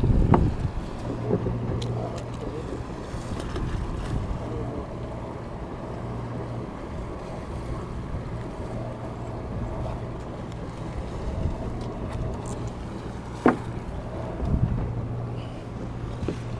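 Steady low hum of a party fishing boat's machinery, with wind on the microphone; a single sharp click sounds near the end.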